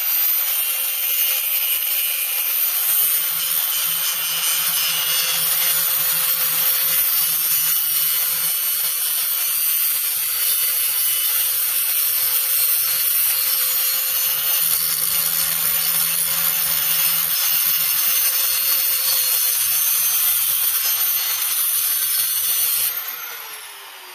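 Electric angle grinder grinding burrs off the freshly cut edge of a steel yard-tractor rim, a steady whine with metal rasping against the disc. About a second before the end it is switched off and its pitch falls as it spins down.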